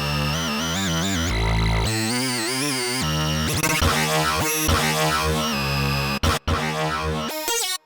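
UVI Synth Anthology 5 software synthesizer playing lead patches, short phrases whose sound changes every second or so as presets are switched, some with a wide vibrato. The sound cuts out briefly twice near the end.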